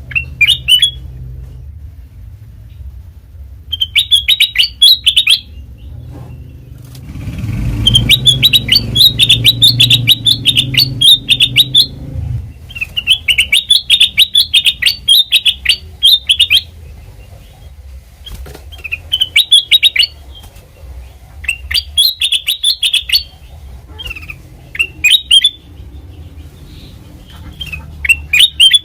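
Kutilang emas bulbul singing in repeated phrases of rapid, sharp chattering notes, each phrase a second or two long with short pauses between. A low rumble runs under the song for a few seconds in the middle.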